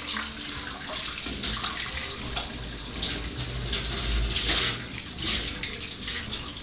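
Kitchen tap running into a sink while dried apricots and prunes are rinsed by hand under it, with small clicks and splashes from the handling.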